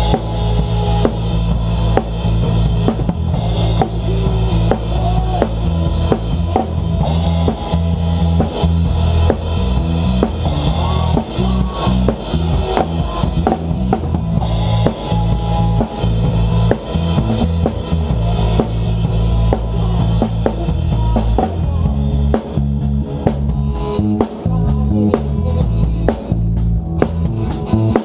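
Live worship band playing, picked up close to the drum kit, so the drums are loudest: steady bass drum and snare hits with cymbal wash over bass and guitars. Near the end the cymbal wash drops back, leaving separate drum hits.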